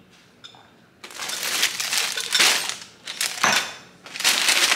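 Packaging crinkling and rustling as an item is unwrapped and handled. It comes in uneven stretches starting about a second in, with a sharp crackle before the loudest, steadier rustle near the end.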